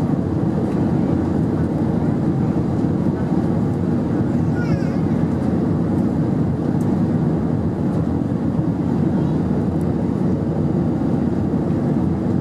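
Steady cabin noise inside an Airbus A319 in its climb after takeoff, heard from a window seat over the wing: the engines' low rumble mixed with the rush of air along the fuselage.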